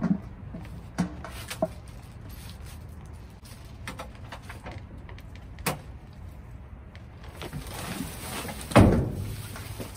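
Scattered knocks and clatter as a red metal popcorn-machine stand is shifted and lifted against the inside of a steel dumpster, with a loud bang near the end. A steady low rumble runs underneath.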